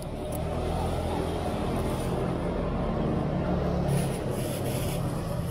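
A motor vehicle's engine running close by on the street, a steady low hum; a plastic bag rustles about four seconds in.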